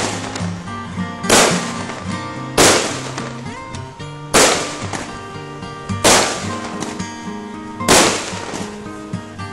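Aerial firework shells bursting one after another: six loud bangs, about one every one and a half to two seconds, each dying away over a fraction of a second. Music plays underneath.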